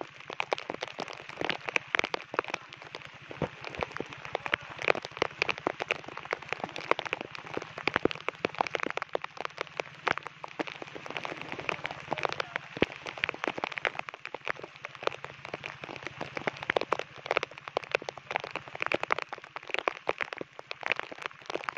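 Heavy cyclone rain falling, a dense, steady patter of drop hits.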